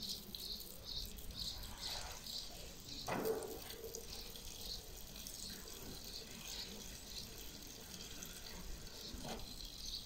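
Short high chirps repeating about two to three times a second, with one louder sweeping sound about three seconds in.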